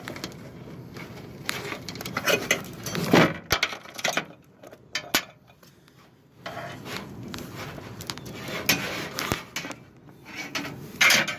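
Hands working on an electric motor's wiring: irregular scraping and rubbing with sharp clicks, quieter for a couple of seconds in the middle and loudest in a scrape near the end.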